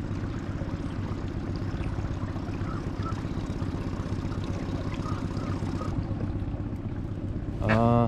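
The outboard motor of a small inflatable boat running steadily.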